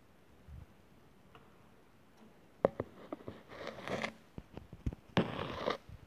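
Handling noise: a couple of sharp clicks about halfway through, then two short scraping rustles about a second apart.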